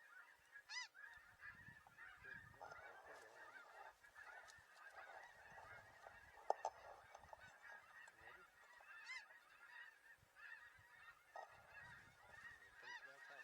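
A faint chorus of many snow geese calling at once, short overlapping high honks with no break. A single sharp click sounds about six and a half seconds in.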